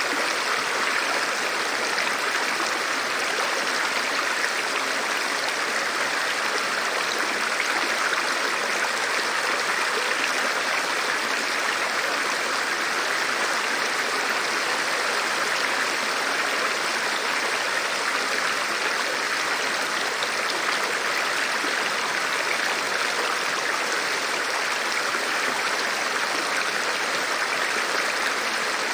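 Flowing river water rushing steadily, an even, unbroken hiss of moving water with no change in level.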